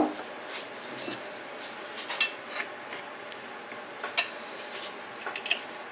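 A few light metallic clinks and taps of metal engine parts being handled around an engine's crankshaft, the sharpest about two seconds and four seconds in, with a quick cluster near the end.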